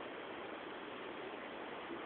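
Steady faint hiss with no distinct event: a quiet gap in a sleeper's snoring.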